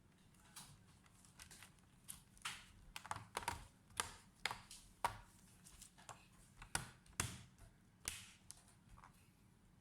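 Irregular string of small sharp clicks and taps on a laptop's plastic case, thickest in the middle few seconds.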